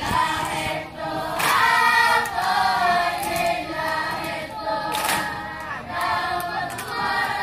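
A large group of children singing together in chorus, with a few sharp claps over the singing.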